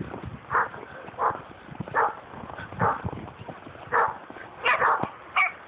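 A dog barking: about eight short barks spaced under a second apart, coming faster near the end.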